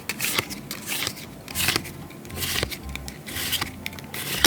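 Pokémon trading cards being handled and flipped through, a run of short irregular rustles and scrapes as cards slide against one another.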